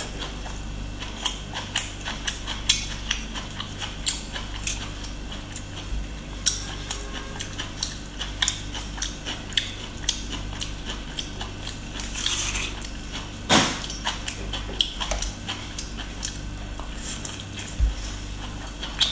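Close-miked chewing and biting of boiled bamboo shoot: a steady string of short crisp crunches, one louder bite a little past the middle, along with the fibrous shoot being pulled apart by hand.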